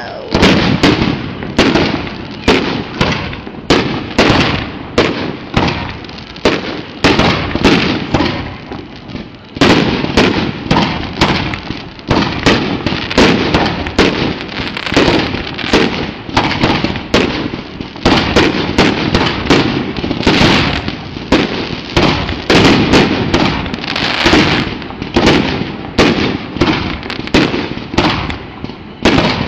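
Aerial fireworks shells bursting in a dense, continuous barrage, several loud bangs a second, easing briefly about eight seconds in before picking up again.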